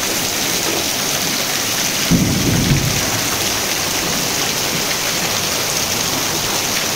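Heavy rain pouring steadily onto a wet concrete lane and plastic cans, with a brief low rumble about two seconds in.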